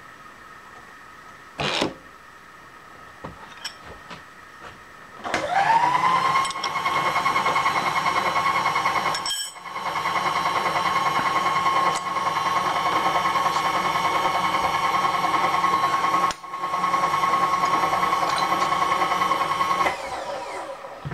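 An electric power tool's motor spins up with a quick rising whine, then runs at a steady high whine for about fifteen seconds, broken twice by brief drop-outs, before winding down near the end. A single short knock comes about two seconds in.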